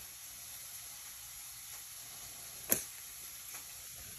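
Faint steady hiss with a single sharp click about two and a half seconds in.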